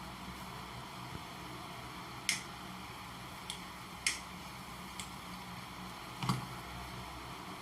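Five short, sharp clicks at irregular intervals over a steady background hiss.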